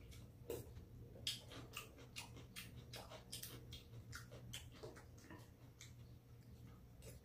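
Quiet eating at a table: faint scattered clicks and smacks of chewing and of spoons and chopsticks, about two a second, over a low steady hum.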